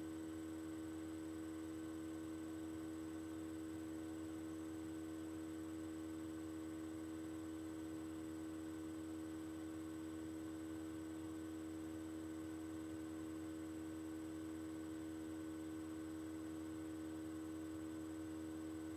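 A steady electronic hum: a low drone with a clear mid-pitched tone over it and a faint high whine, unchanging.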